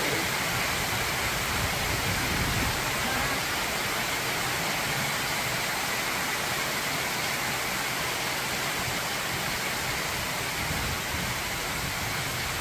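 Heavy tropical rain falling in a steady, even hiss.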